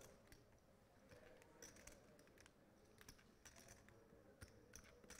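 Faint, irregular clicking of clay poker chips being handled and riffled at the table, over near-silent room tone.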